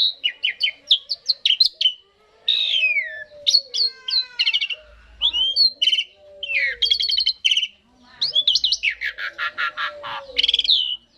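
Asian pied starling song: a fast, varied string of whistled notes, sliding calls and harsh rattling chatter with short pauses, including a longer rattling phrase late on.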